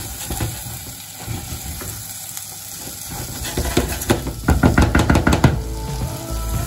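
Wooden spoon stirring and scraping rice with bacon in a small non-stick saucepan, over a light sizzle as the rice is sautéed before the stock goes in. The stirring is soft at first and becomes a quick, louder run of scrapes about halfway through.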